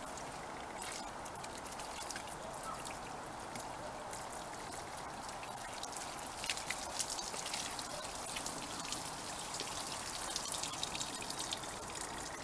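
Water poured from a watering can splashing onto a car's roof and side windows and trickling down the glass and paintwork, a steady splatter dotted with sharp drip splashes.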